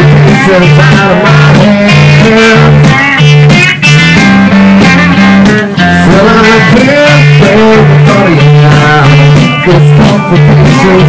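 Loud live rock band: electric guitar and bass guitar playing a repeating riff, with a male singer's vocals on top.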